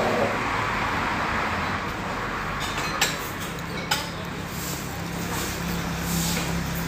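Noodle soup being eaten with chopsticks: two sharp clinks against the ceramic bowl about three and four seconds in, then the noodles being slurped. Steady road traffic runs underneath.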